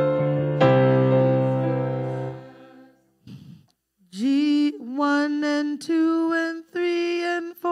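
Electric stage keyboard chords held and fading out over the first three seconds. About four seconds in, singing starts: short notes held on one steady pitch, broken into quick syllables, as in sung counting.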